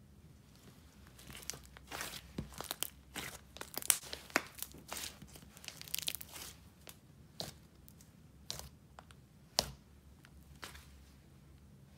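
Soft slime being stretched, squeezed in the fists and poked by hand, giving a run of sharp crackles and small pops as air pockets in it burst. The crackles come thick in the first half and thin out later, with one louder pop near the end.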